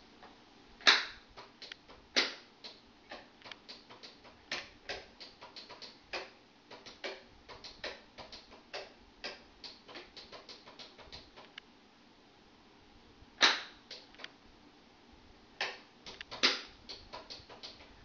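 Wall switches on a home wiring board being flipped on and off again and again: a run of sharp clicks, a few much louder ones about a second in, about two seconds in, and twice in the last five seconds.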